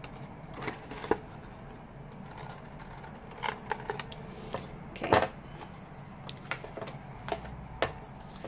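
Scissors snipping through cardstock in short, irregular cuts, with paper handled between them; the loudest snip comes about five seconds in.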